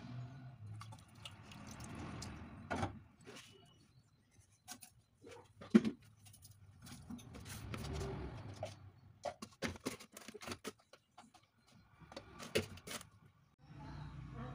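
Steel kitchen vessels and utensils being handled: scattered clinks and knocks with stretches of softer rustling in between. One sharp knock about six seconds in is the loudest.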